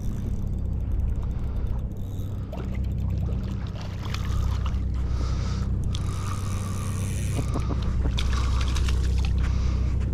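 Steady low rumble of wind on the microphone, with splashing and scraping as two hooked sea robins are dragged out of the shallows onto wet sand.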